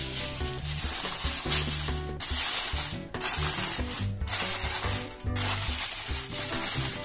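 Aluminium foil crinkling and rustling as it is pressed and crimped around the rim of a glass baking dish, in stretches broken by short pauses about once a second. Background music plays underneath.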